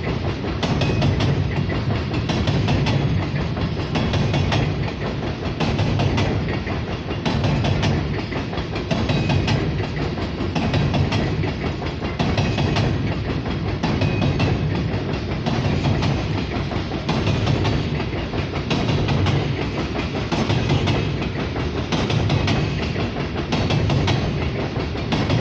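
BNSF coal train's hopper cars, loaded for the power plant, rolling past over a railway bridge: a steady heavy rumble of steel wheels on rail with a rhythmic clickety-clack, a clack roughly every second as the wheelsets cross rail joints.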